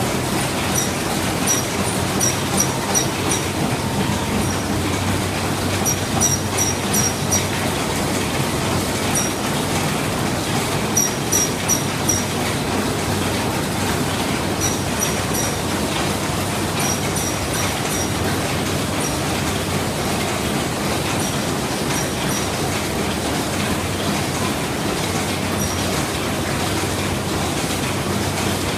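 Ham sausage production machine running: a steady mechanical hum and rattle, with runs of sharp, high-pitched clicks, about four or five in quick succession, repeating every second or two.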